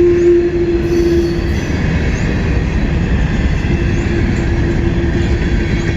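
Freight train cars rolling past, wheels rumbling and rattling on the rails, with a steady whine that fades about a second and a half in and returns a couple of seconds later.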